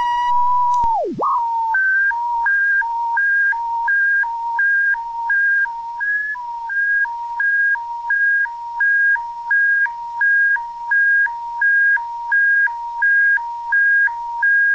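Attention tone of a mock Canadian Emergency Public Warning System alert. It opens with a steady beep that sags in pitch and dies away within the first second or so. Then a high and a low tone alternate evenly, about three changes a second.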